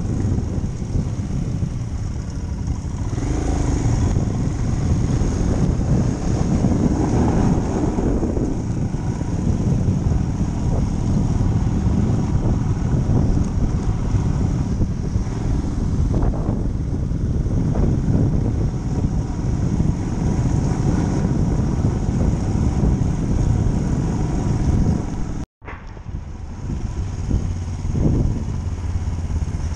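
Motorcycle engine running under way over a rough dirt track. About three quarters of the way through the sound cuts out for an instant, then carries on.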